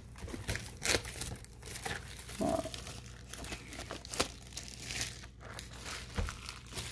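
Clear plastic shrink wrap crinkling and tearing as it is peeled off a cardboard booster box by hand, in a run of irregular crackles and snaps.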